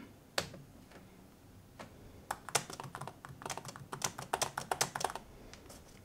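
Typing on a Dell XPS 15 2-in-1 (9575) laptop keyboard. A few single key clicks come first, then a quick run of keystrokes from about two seconds in to about five seconds in as a short line of text is typed.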